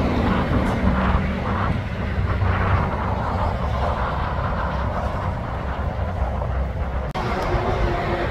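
A heavy articulated truck hauling a container trailer drives past, giving a steady low diesel rumble with tyre noise. The sound breaks off for a moment about seven seconds in, then another truck's low rumble carries on with a steady hum over it.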